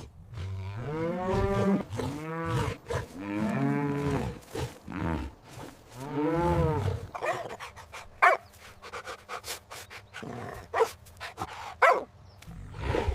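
Cow mooing, about four long calls that rise and fall in pitch over the first seven seconds. These are followed by a few short, sharp calls in the second half.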